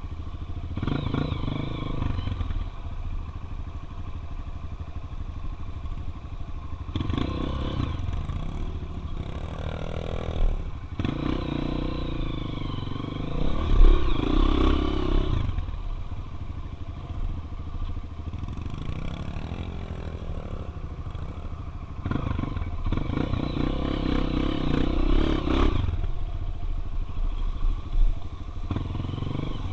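Single-cylinder four-stroke trail motorcycle engine running, revving up in several surges and easing back between them as the bike is ridden over dirt.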